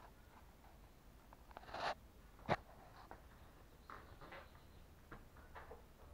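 Faint handling noises: small scattered clicks, a brief rustle, and one sharp knock about two and a half seconds in.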